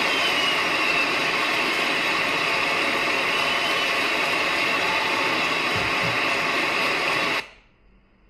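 Audience applauding, a dense, even clapping that cuts off abruptly about seven seconds in.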